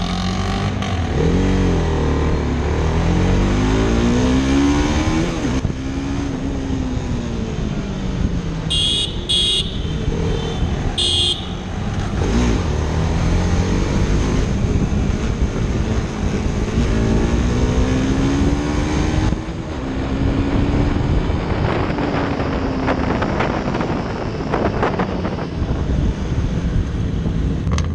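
Sport motorcycle engines being ridden hard, their pitch climbing and dropping again and again as they accelerate and shift. Three short high beeps come about a third of the way in.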